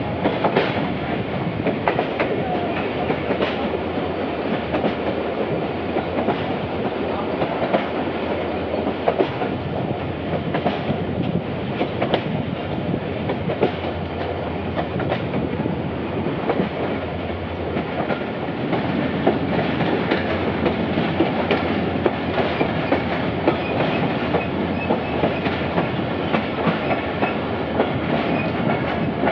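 Karachi Circular Railway passenger train running at speed, heard from on board: a steady rumble with the wheels clicking and clacking over the rail joints.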